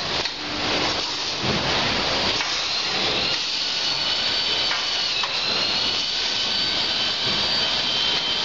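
Packaging-line machinery running steadily: a continuous mechanical hiss with a high whine, which dips briefly in pitch about five seconds in.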